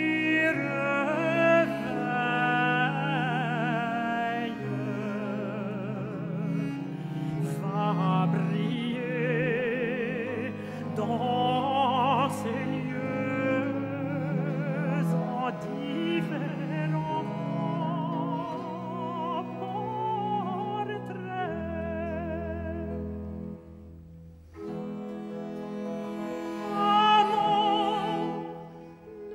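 Baroque French court-ballet music: a woman singing in French with wide vibrato over bowed strings and a low held continuo line. About three-quarters of the way through, the sound drops away briefly, then the voice comes back strongly.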